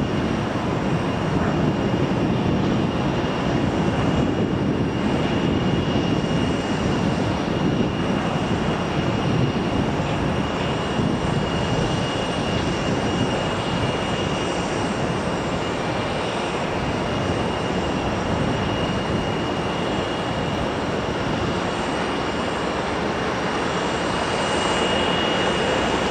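Airbus A320-family airliner's jet engines running at taxi power: a steady rumble with a constant high-pitched whine over it.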